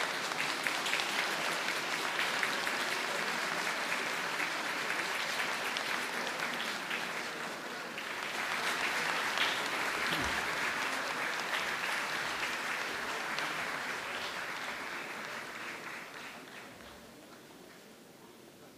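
Audience applauding, the clapping swelling about eight seconds in and dying away near the end.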